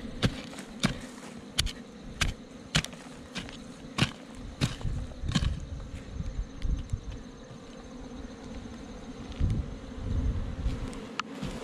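Honeybees buzzing steadily around their nest in the ground, with sharp strikes of a wooden digging stick into the soil about every half second or so for the first five seconds; the strikes stop and the buzzing goes on, with one more strike near the end.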